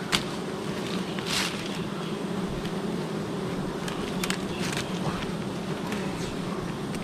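A swarm of wild honeybees humming steadily, with a few brief clicks and rustles over the hum.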